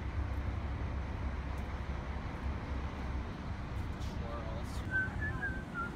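City street ambience: a steady low rumble of traffic. A faint, thin, wavering high tone comes in near the end.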